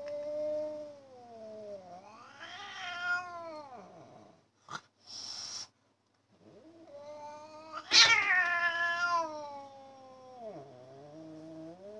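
Domestic cats in a territorial standoff through a window, yowling: long, wavering, drawn-out calls that slide slowly down and back up in pitch. There is a short hiss about five seconds in, and the loudest yowl starts sharply about eight seconds in.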